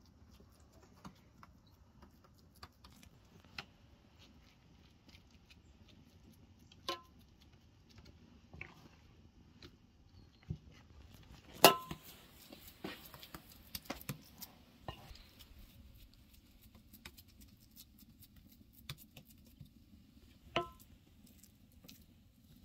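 Metal spoon clicking and scraping against a black metal baking pan as crumbly dough is spooned in and spread. A few sharper taps on the pan ring briefly, the loudest about halfway through.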